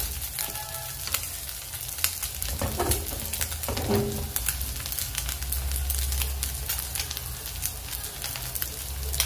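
Small fish and green masala frying in an aluminium kadai on a gas burner: a steady sizzle with many sharp little crackles and pops.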